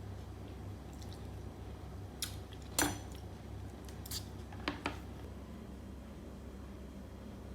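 A few light clinks of cutlery against a dish, about five in all, the loudest near the middle ringing briefly, over a steady low hum.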